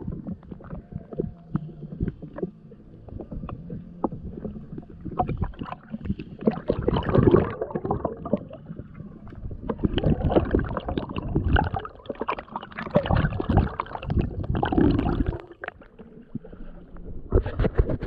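Underwater river sounds while searching the riverbed: stones and gravel clicking and knocking, with rushing, gurgling spells of water and bubbles that come and go several times.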